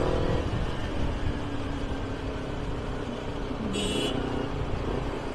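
Kawasaki Ninja 250R parallel-twin engine running at a steady cruise through an aftermarket AHM carbon racing exhaust, with a dense low rumble of riding wind. About four seconds in there is a brief high-pitched tone.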